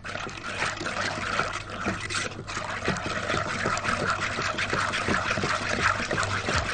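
Cold milk mixture being stirred briskly in a pot, liquid sloshing with quick, continuous scraping strokes; cocoa, starch, sugar and egg yolks are being dissolved in the cold milk before it goes on the heat.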